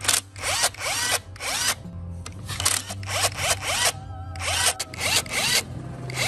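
DeWalt cordless impact wrench running in short bursts as it loosens bolts on an old engine casing, each burst opening with a rising motor whine into rattling hammering. There are about ten bursts in three clusters, over background music.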